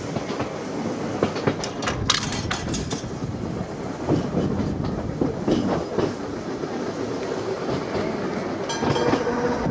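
Open-top double-deck electric tram running along its narrow-gauge track, heard from the upper deck: a steady rumble of wheels on rail, with a run of sharp clicks about two seconds in. A steady hum joins near the end.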